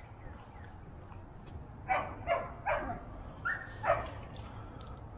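A dog barking: a quick run of three barks about two seconds in, then another bark a little over a second later.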